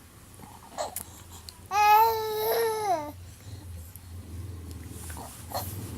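A two-and-a-half-month-old baby cooing: one long, loud vocal sound about two seconds in, lasting over a second and falling in pitch at the end, with a few short, faint sounds before and after it.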